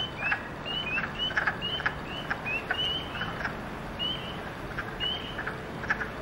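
Frogs calling from a vernal pool: many short, high peeps that rise in pitch, a few each second, mixed with lower clucking calls.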